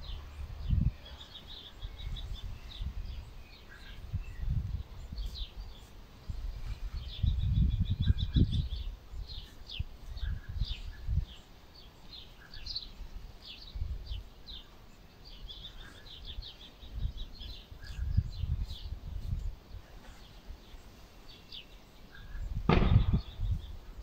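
Small birds chirping, with many short high calls and a few quick trills, over gusty wind buffeting the microphone. A louder burst of noise comes near the end.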